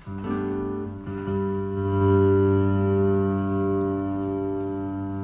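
A chord played on an amplified instrument and left to ring, with a second chord struck about a second in that swells and then slowly fades.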